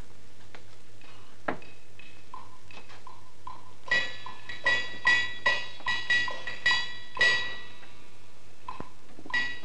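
Teochew opera percussion playing a pattern of sharp, ringing strikes. It is sparse at first, quickens into a run of about two or three strikes a second from about four seconds in, pauses, then picks up again near the end.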